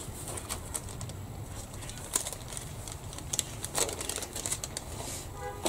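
Clear plastic bag around model-kit sprues crinkling as it is handled and opened, with scattered small clicks and crackles of the plastic.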